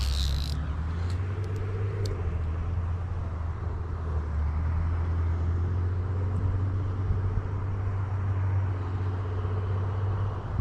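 Steady low drone of road traffic, with a short hiss right at the start and a few faint ticks soon after.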